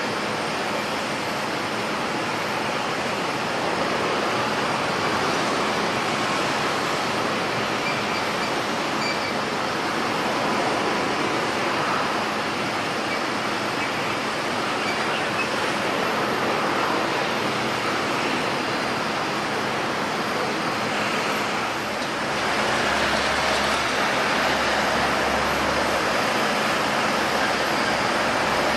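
Jet airliner engine noise, a steady dense roar that grows a little louder about three-quarters of the way through as a deeper rumble comes in.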